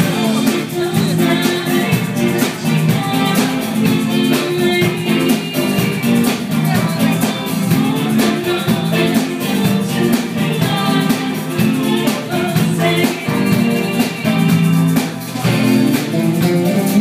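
A live pop band playing: electric bass, drum kit and keyboard.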